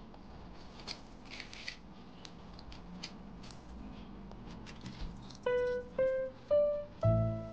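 Light scrapes and clicks of a metal spoon scooping seeds out of halved jalapeño peppers on a wooden cutting board. About five and a half seconds in, louder background music comes in: four single keyboard notes stepping upward, then a fuller chord with bass.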